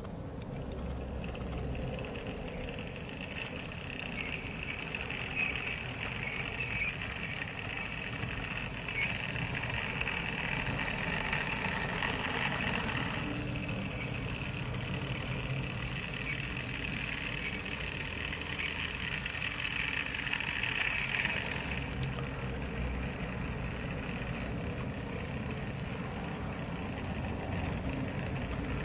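Model trains running on the layout: a steady whine from the motors and wheels on the track over a low, engine-like rumble. The whine cuts off about 22 seconds in, leaving the low rumble.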